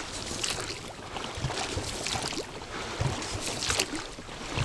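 Oars of an inflatable rowing boat dipping and pulling through river water, a few splashing strokes over a steady wash of water.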